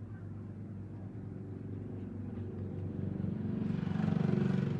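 A motorbike engine going by, growing louder in the last second or two, over a steady low hum.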